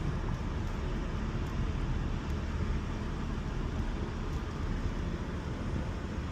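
Holden VY Commodore driving steadily at about 60 km/h, its engine and tyre-on-road noise heard from inside the cabin as a steady low rumble.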